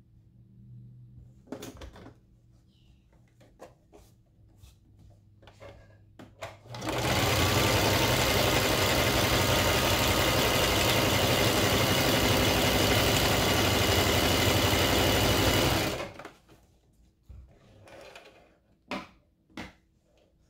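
Electric home sewing machine running a seam at steady speed for about nine seconds, starting about seven seconds in and stopping abruptly. Light clicks before it starts, and a few sharp clicks near the end.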